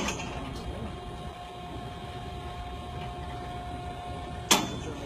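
Steady low mechanical hum, with one sudden loud knock about four and a half seconds in that rings briefly and dies away.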